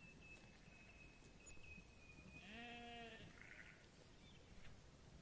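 A sheep bleats once, a short, faint "baa" about two and a half seconds in.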